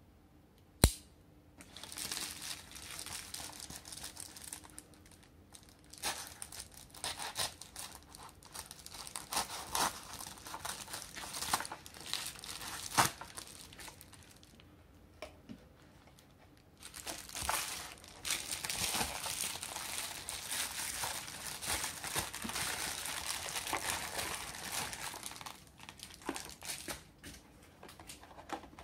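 Plastic bubble mailer crinkling and tearing as it is slit open with a pocket knife, after a single sharp click about a second in. The crinkling pauses briefly and then runs again for several seconds as the mailer is handled.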